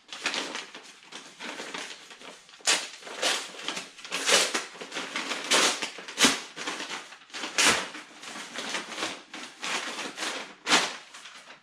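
Package being unwrapped by hand: continuous rustling and crinkling of packaging, with several sharper, louder crackles as it is pulled open.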